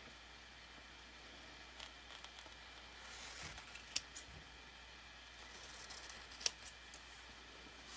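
Faint handling of craft supplies on a tabletop, with light scraping and two sharp clicks.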